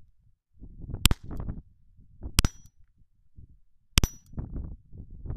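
Taurus PT-22 .22 LR pistol fired three times, about a second and a half apart, shooting Aguila Super Extra high-velocity copper-plated rounds and cycling without a jam.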